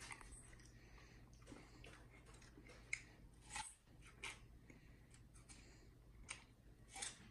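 Chimpanzee biting and chewing pieces of mini watermelon: faint wet crunches and smacks that come irregularly, a few sharper ones about three, four and seven seconds in.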